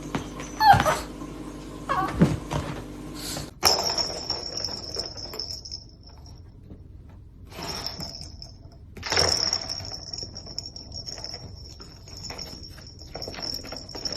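A pet animal's short whining calls, each rising and falling in pitch, a few times in the first few seconds over a steady low hum. After an abrupt change, a steady high-pitched whine runs on with light rustling and handling noise.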